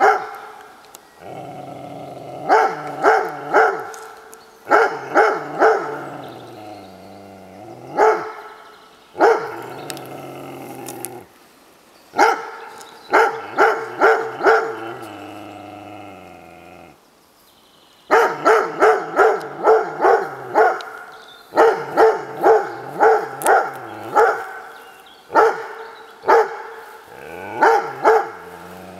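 A dog barking in repeated series of sharp, loud barks at white-sheeted 'ghost' figures during a dog mentality test, with pauses of a second or two between series.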